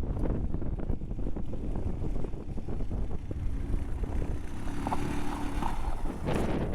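Motorcycle riding over rough ground, with wind buffeting the microphone and a steady low rumble; a faint engine tone shows about four seconds in.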